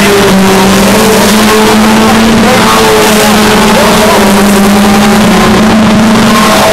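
Several stock car engines running at steady high revs as the race cars pass close by on the track, loud and continuous.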